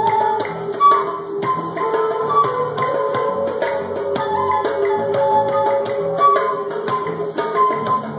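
A small flute playing a flowing melody over hand percussion struck with bare hands, in a live acoustic jam.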